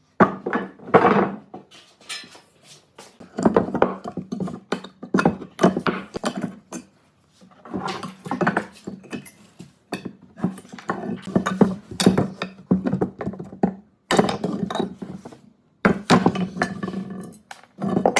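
Irregular knocking and clinking of hard objects being handled, in quick clusters with short pauses, over a low steady hum.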